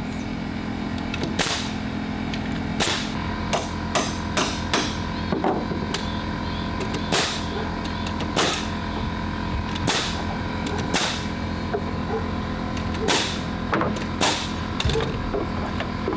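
Nails being driven into treated wooden deck boards: sharp, irregularly spaced strikes, often a second or so apart and sometimes in quick runs, over a steady hum.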